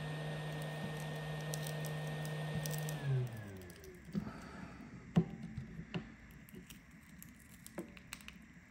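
Heat gun's fan blowing with a steady hum and airy hiss, switched off about three seconds in, its pitch falling as it winds down. After it, light scattered clicks and taps.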